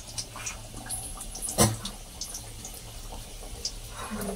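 Oil sizzling steadily as stuffed potato-dough rolls fry, with scattered small clicks and one sharper knock about one and a half seconds in.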